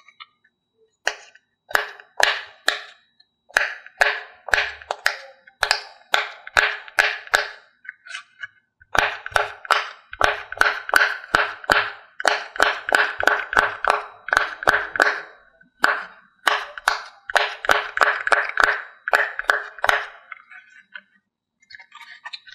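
Silicone pop-it fidget toy, shaped like a pineapple, having its bubbles pressed in by a finger one after another: a long series of sharp pops, up to about four a second in the quickest runs, with short pauses between runs.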